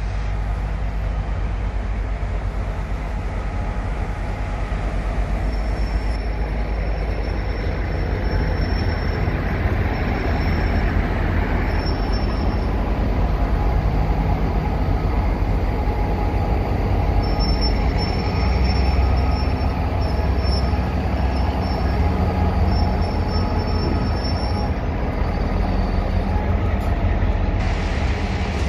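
DE 22000-class diesel-electric locomotive's engine running with a steady low rumble while it moves slowly to couple onto the train. A thin, high squeal comes and goes through the middle.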